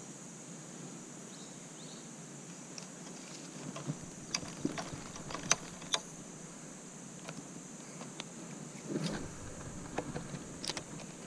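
Irregular sharp clicks and knocks, a few louder than the rest, over a steady hiss. They start about four seconds in and go on to near the end, with a duller knock cluster shortly before the end.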